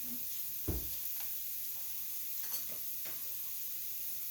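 Garlic and ginger sizzling steadily in a hot pan, with a few short clicks and scrapes of a utensil stirring them.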